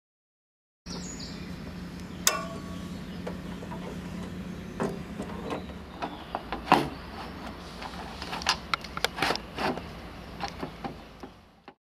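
Painted metal frame profiles of a coffin lowering device clicking and knocking as a length profile is slid over a corner unit and fitted. There are scattered sharp knocks, the loudest about halfway, and a quick run of clicks near the end, over a steady low hum.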